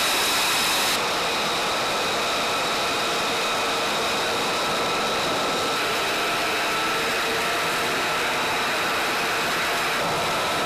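Steady engine noise with a constant high whine on the flightline while an F-35A is refuelled from a fuel truck. The hiss drops slightly about a second in.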